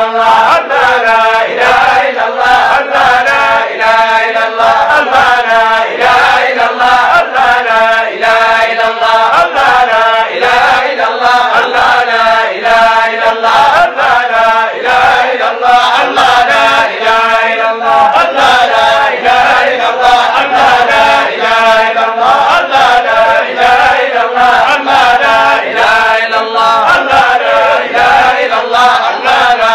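Voices chanting a Sufi zikr: a devotional phrase sung over and over in a steady repeating rhythm.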